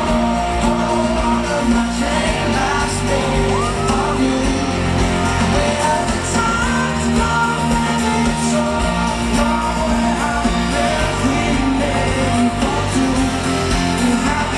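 Pop song playing: a singing voice over a steady band backing with guitar.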